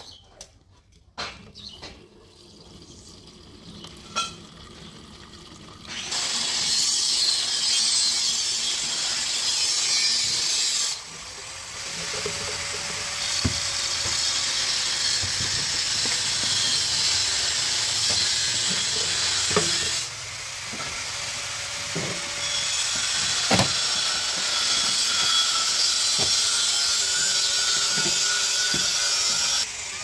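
Fuel poured from a plastic jerrycan through a cut-off plastic bottle used as a funnel into a tractor's fuel tank. The steady splashing stream starts about six seconds in, eases off twice, has a few knocks along the way, and stops near the end.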